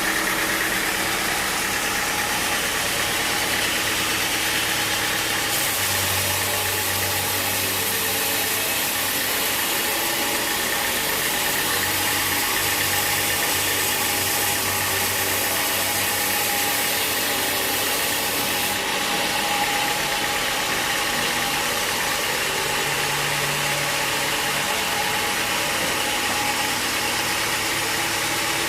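Sawmill machinery running steadily: an engine-driven mill giving a constant mechanical drone with a broad hiss over it.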